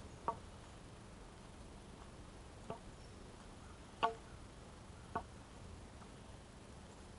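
A wooden walking stick tapping on an asphalt path: four short, sharp knocks at uneven gaps of one to two and a half seconds, the third the loudest, over a faint steady background.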